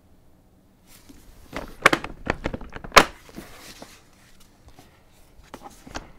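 Plastic clicks and knocks of an UPPAbaby Mesa infant car seat being handled on the Vista V2 stroller's mount. A cluster of sharp knocks starts about a second in, the loudest coming about three seconds in, then fainter clicks follow.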